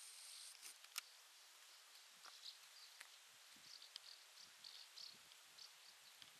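Faint rural outdoor ambience: a thin, high insect buzz that stops about half a second in, then scattered small high chirps over a soft hiss. Two sharp clicks, about a second in and again about two seconds later.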